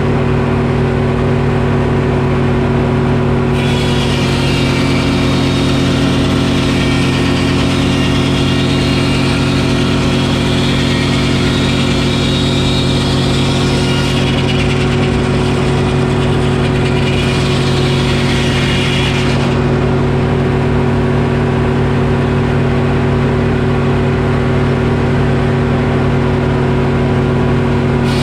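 Detroit Diesel engine driving a Frick sawmill, running steadily. From about three and a half seconds in to about nineteen seconds a higher hiss rises over it as the circular saw blade cuts through the oak log, then only the engine remains.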